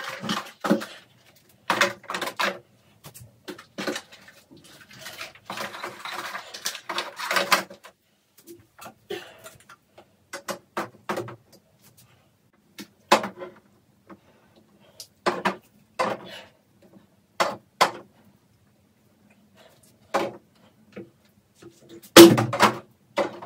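Cosmetic bottles, jars and boxes being set down and moved about on the glass shelves of a bathroom cabinet: a string of irregular clicks and knocks, with a stretch of rubbing and shuffling a few seconds in. The loudest knock comes near the end.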